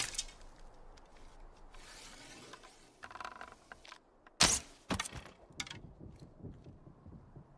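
Bow and arrow: an arrow striking with one sharp crack about four and a half seconds in, followed by a few lighter knocks, after a softer noisy sound a little earlier.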